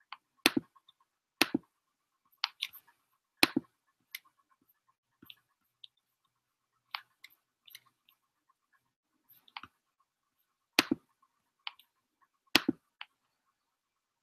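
Irregular sharp clicks: three loud ones about a second apart near the start, two loud ones near the end, and fainter clicks scattered between.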